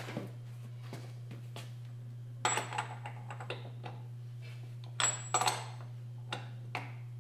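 Short metallic clinks and clatters of a socket and extension being handled at the wheel hub, loudest about two and a half seconds in and twice close together around five seconds in, over a steady low hum.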